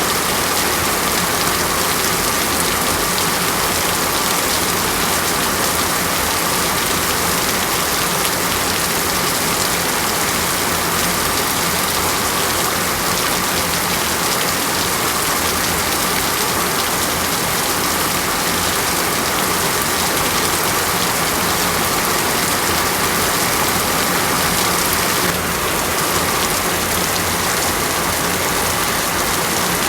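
Steady rain falling, an even, unbroken hiss of drops on a surface.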